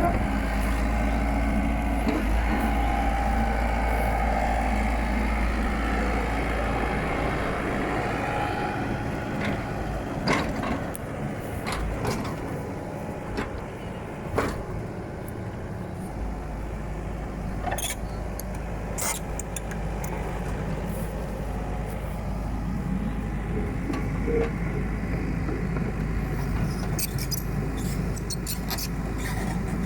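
Komatsu PC78UU mini excavator's diesel engine running steadily while the machine works, with scattered sharp metallic clanks that grow more frequent near the end.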